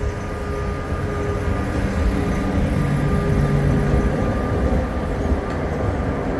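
Sóller electric tram running on its track: a steady rumble with a held motor hum, the low hum swelling briefly around the middle.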